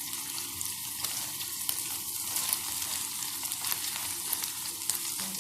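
Egg and Malabar nut leaf juice frying in ghee in a deep pan: a steady sizzle with small crackles, and the light scrape of stirring.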